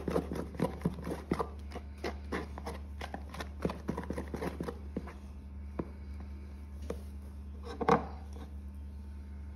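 Small plastic spoon stirring thickening glue-and-activator slime in a plastic tub: quick clicking taps, about four or five a second, slowing after about five seconds, with one louder knock about eight seconds in.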